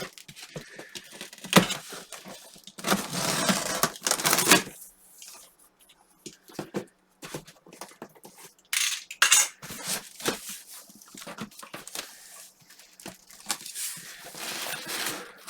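Cardboard shipping box being opened by hand: bursts of tearing and rustling, with knocks and clatters in between.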